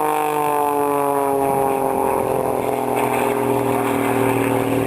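A propeller-driven aerobatic aircraft flying past, its engine and propeller drone sliding steadily down in pitch as it goes by and moves away.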